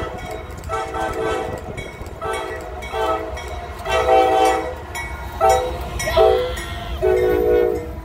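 Norfolk Southern freight locomotive's multi-chime air horn sounding a string of about eight short and long blasts as the train passes, with the longest blast about halfway through. The low rumble of the locomotives and cars runs underneath.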